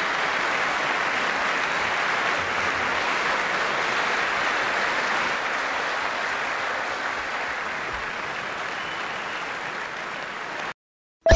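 Crowd applauding in a long, steady round that fades a little and then cuts off abruptly near the end.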